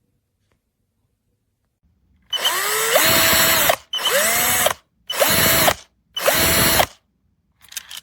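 VIWKO 20V cordless drill run in four short bursts on the trigger. Each burst spins up with a rising whine, holds a steady speed for under a second or so, and stops on release. A few faint clicks come near the end.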